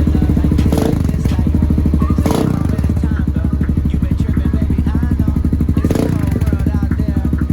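The 2009 Kawasaki KLX140L dirt bike's single-cylinder four-stroke engine running at a steady speed, its pitch unchanging. A few short noisy bursts stand out over it, about three in all.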